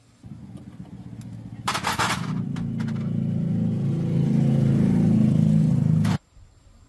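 Motorcycle engine running: it comes in low, picks up with a brief loud rattle about a second and a half in, then runs steadily and cuts off abruptly near the end.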